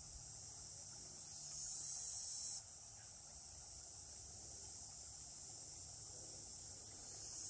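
High, steady insect buzzing, the kind made by crickets or cicadas, that swells about a second and a half in and cuts off suddenly a second later, over a faint low rumble.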